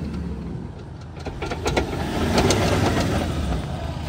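Ford Endeavour's 3.2-litre five-cylinder diesel engine revving up under load as the SUV crawls onto the articulation obstacle, with scattered crackles from the tyres on the dirt track. The engine grows louder from about a second in. It is straining while still in four-wheel-drive high range and is failing to make the climb.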